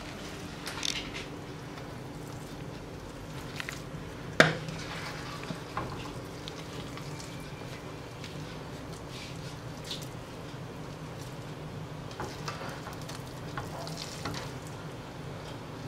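Spatula scraping and scooping sticky glutinous rice cake out of a nonstick frying pan, with scattered soft scrapes and clicks of the spatula against the pan and one sharp knock about four seconds in, over a steady low hum.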